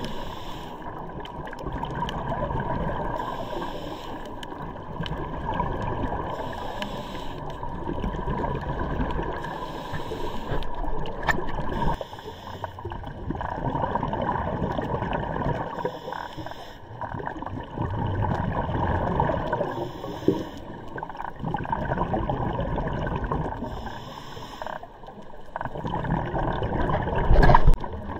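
Underwater recording of a scuba diver breathing through a regulator, a breath cycle about every three to four seconds with exhaled bubbles, over a steady low rumble.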